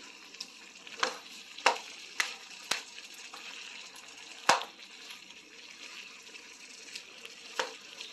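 Chicken and potatoes sizzling in a nonstick frying pan as they are stirred with a spatula. The spatula knocks against the pan several times, loudest about four and a half seconds in.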